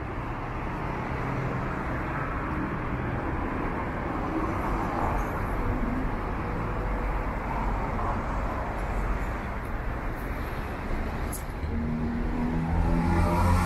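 Street traffic: cars driving by with steady road noise. Near the end one vehicle's engine grows louder as it passes close.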